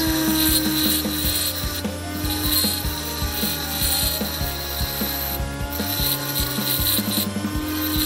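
Home-built bench grinder driven by a salvaged washing-machine universal motor, spinning fast with a steady whine while a steel center punch is ground against its disc, an uneven gritty scraping of metal on the abrasive.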